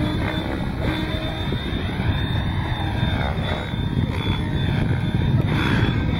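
Radio-controlled model aircraft flying overhead, their motors whining and sweeping up and down in pitch as they pass and turn, over a steady low rumble.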